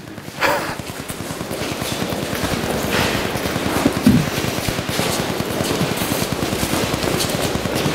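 Footsteps of a group of people jogging backwards on an indoor artificial-turf court: a dense, rapid, irregular patter of shoe strikes that builds slightly in loudness.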